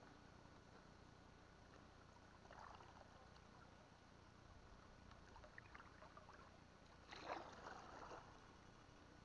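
Near quiet: faint water sloshing around a small boat, with a few soft splashes, the loudest about seven seconds in.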